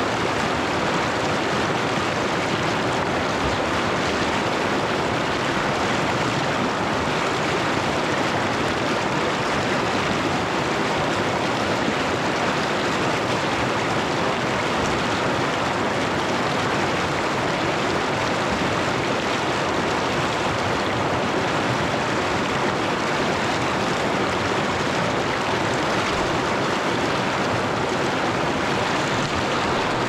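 River water rushing in a steady, even stream, unchanging throughout.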